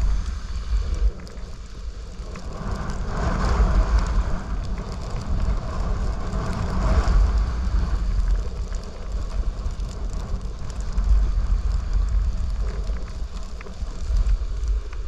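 Snowboard sliding downhill over snow, its edges scraping and hissing as it turns, with wind buffeting the microphone. The scraping swells twice, a few seconds in and again about seven seconds in.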